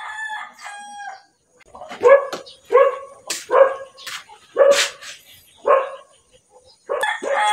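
A dog barking repeatedly, short barks about once a second, after a rooster crows near the start.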